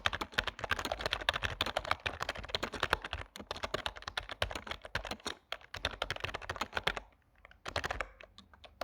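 Logitech K120 membrane keyboard being typed on fast, a dense run of key clicks for about seven seconds, then a brief pause and a short flurry of keystrokes near the end.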